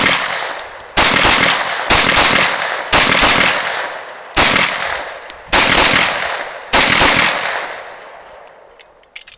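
Grand Power K100 pistol firing six shots at roughly one a second, the gaps widening toward the end. Each shot rings out with a long echo. A few faint clicks follow after the last echo fades.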